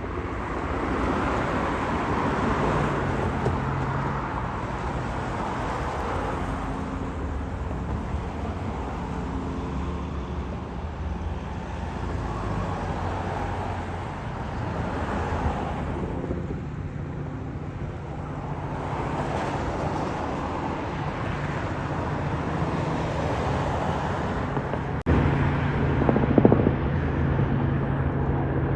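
Robinson R44 helicopter flying past, a steady low hum with swells of louder noise, mixed with road traffic noise. The sound jumps louder suddenly near the end.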